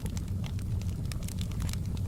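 Wood fire burning in a fireplace: a steady low rumble of flames with irregular sharp crackles and pops, several a second.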